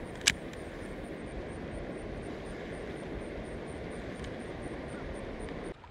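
Steady rushing noise of a shallow river current flowing around the wader, with a single sharp click about a third of a second in. The noise cuts off suddenly just before the end.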